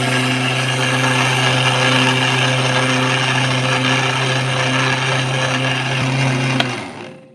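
Panasonic electric mixer grinder running steadily with its steel jar full of granulated sugar, grinding it to fine powder: a loud motor hum under a hiss of sugar whirling in the jar. It is switched off near the end and dies away.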